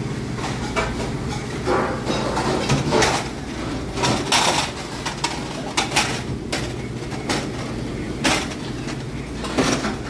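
Commercial kitchen clatter: scattered clinks and knocks of dishes and utensils on a steel counter over a steady low hum.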